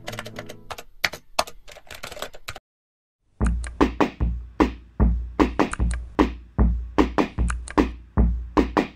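Computer keyboard typing, a quick run of irregular key clicks that stops after about two and a half seconds. After a short silence, an electronic drum beat with a deep, heavy kick drum comes in.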